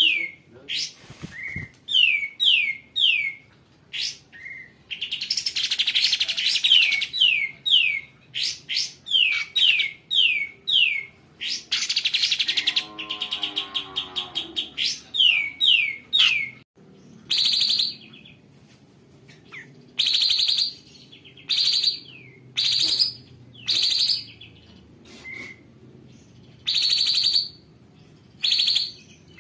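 Kapas tembak bulbul singing: quick runs of falling whistled notes broken by harsh, rough rasps. From about halfway, the song turns to sharp separate chirps about one a second.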